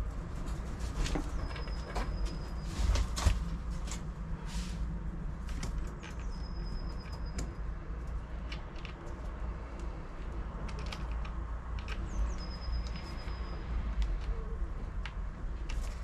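Light clicks and knocks of hands handling the metal and wooden parts of a home-made bird feeder extender arm, the loudest about three seconds in, over a steady low rumble. A short high whistle that drops and then holds repeats three times, about five seconds apart.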